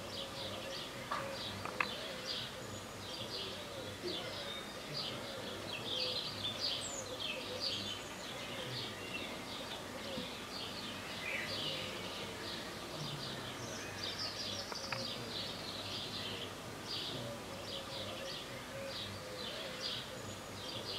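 Birds chirping: a steady, fast run of short, high chirps.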